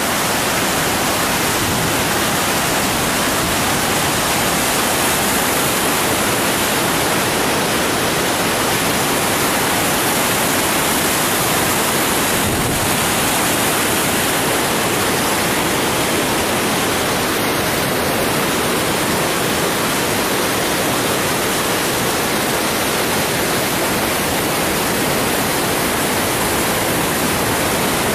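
Monongahela River water pouring over a lock and dam: a loud, steady, unbroken rush.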